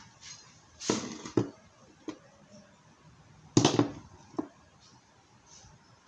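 Handling noise: a few knocks and clatters as a washing machine timer switch and its wires are picked up and set down on a wooden workbench. The loudest knock comes about three and a half seconds in.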